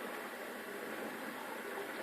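Bosch SMS69M58EU dishwasher running its TurboSpeed wash cycle: a steady, even hiss of the machine at work.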